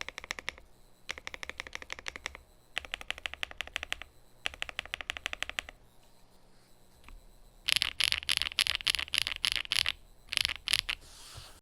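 Typing on a Lemokey P1 Pro mechanical keyboard with HMX Bamboo switches and Wuque Studio keycaps: four quick runs of rapid key clicks with short pauses between them, then after a lull a stretch of louder, more widely spaced key strokes near the end.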